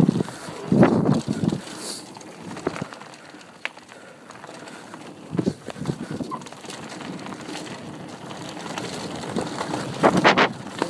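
Mountain bike descending a dirt trail: irregular knocks and rattles as it jolts over bumps, over a steady rolling noise. The heaviest knocks come about a second in and near the end.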